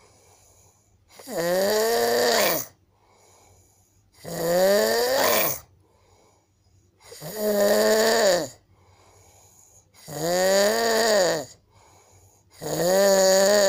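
A sleeping man snoring loudly: five long, pitched, bleat-like snores about every three seconds, each rising and falling in pitch, with quiet breaths between. The snorer takes it for a sign of a breathing problem.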